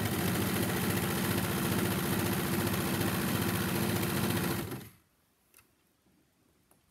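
Four-thread serger running at speed, stitching a seam through three layers of fabric with a fast even rattle, then stopping abruptly a little under five seconds in.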